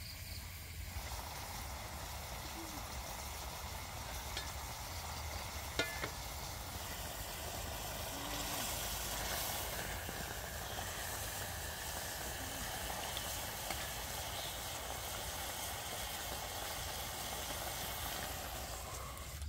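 Whole chicken in spicy curry sauce cooking in a metal pan over a wood fire, a steady sizzle that starts about a second in. A utensil stirs in the pan, with faint ticks and one sharp knock about six seconds in.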